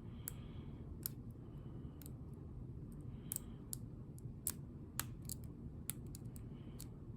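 Lock picking on a Ruko ASSA Abloy pin-tumbler lock: faint, irregular metallic clicks as the pick and tension wrench work the pins.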